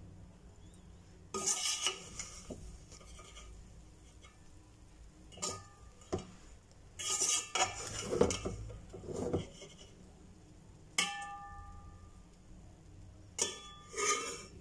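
Metal slotted skimmer scraping and knocking against a metal cooking pot as cooked pulao rice is lifted and turned, in a series of separate strokes. One knock late on rings briefly.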